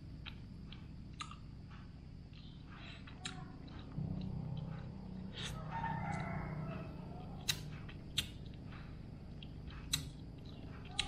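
A rooster crows once in the background about halfway through. Around it are the soft sounds of someone eating rice by hand, with a few sharp clicks later on.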